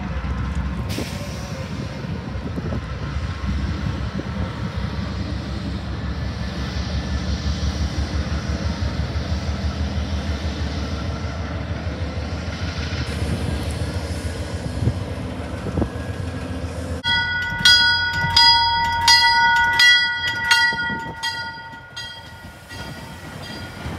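Diesel locomotives rumbling slowly past with a steady low engine throb. About seventeen seconds in, after a sudden change, a train's multi-note air horn sounds a chord for about four seconds, broken by a fast regular beat, then fades to quieter rolling train noise.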